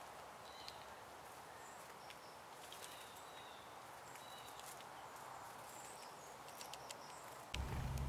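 Faint small songbirds chirping and chipping, with scattered sharp taps and clicks as a blue jay hops about and picks at a pile of peanuts and seed on rock. A louder low rumble comes in suddenly near the end.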